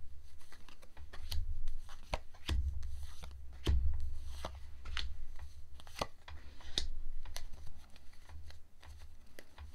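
Tarot cards being dealt and laid down on a cloth-covered table: a string of sharp card snaps and slides at uneven intervals.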